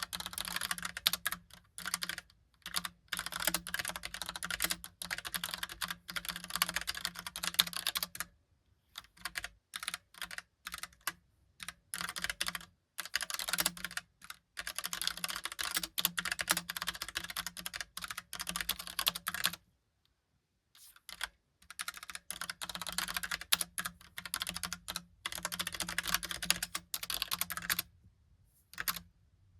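Fast typing on a Logicool Pop Keys mechanical keyboard with round typewriter-style keycaps: dense runs of clacking keystrokes in bursts of a few seconds, with brief pauses between them and a longer pause about two-thirds of the way through.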